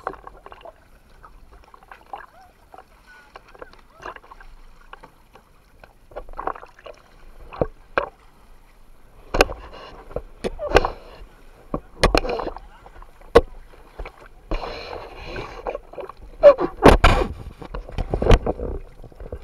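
Splashing sea water and a run of sharp knocks and thuds close to a pole-mounted action camera as a swimmer climbs back onto an inflatable banana boat. The knocks come more often from about six seconds in and are loudest near the end.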